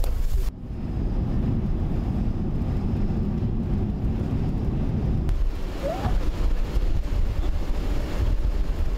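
Wind rumbling on the microphone outdoors. From about half a second to five seconds in, an edit gives way to the steady low drone of a car driving on the road, heard from inside the car. After that the wind rumble returns, with a short rising squeak about six seconds in.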